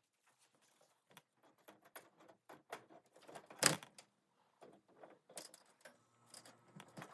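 Scattered rustling and light clicks of hay and a rabbit cage being handled, with one louder crackle about three and a half seconds in.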